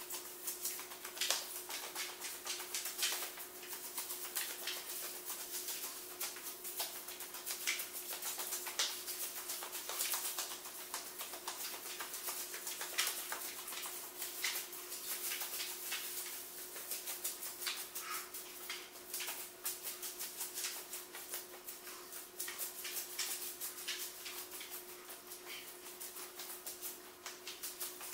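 Loose magnetic VHS tape crinkling and rustling in dense, irregular crackles, over a steady low hum.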